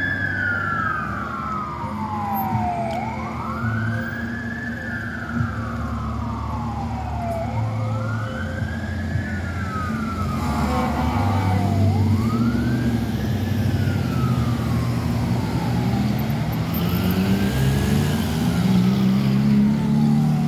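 Fire engine siren wailing, each cycle rising quickly and falling slowly, about once every four and a half seconds. The siren grows fainter as the new Emergency One Typhoon pumper moves away. City traffic engines rumble underneath and get louder near the end.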